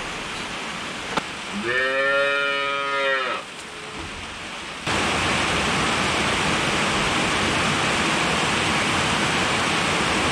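Dairy cattle moo once, a long drawn-out call about two seconds in. About halfway through, steady rain drumming on a corrugated metal roof overhead takes over.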